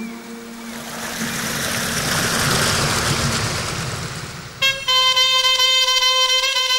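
A rushing noise swells and fades over about four seconds under a steady low hum, then background music starts abruptly about four and a half seconds in.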